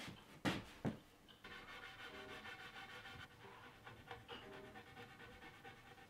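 Two sharp knocks in quick succession, about half a second apart, followed by a faint steady sound.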